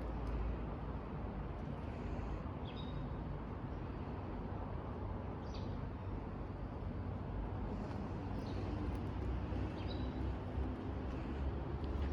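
Street ambience with a steady low rumble, and a short high bird chirp repeating every few seconds.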